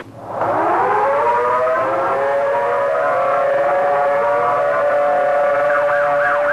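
Outdoor civil defense warning siren winding up from a low pitch to a steady tone over about two seconds, then holding. Near the end a fast-wailing vehicle siren joins, swooping up and down about three times a second.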